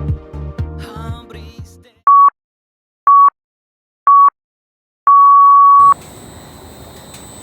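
Electronic music fades out, then a countdown tone plays: three short beeps a second apart and a fourth, longer beep at the same pitch. After it, a steady background noise with a faint high whine.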